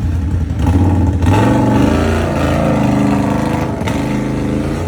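ATV engine revving: it picks up about a second in and stays high, its pitch wavering up and down.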